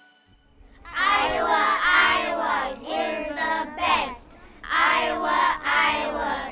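A group of children's voices chanting a sing-song cabin cheer in unison. It starts about a second in, pauses briefly around four seconds in, then goes on.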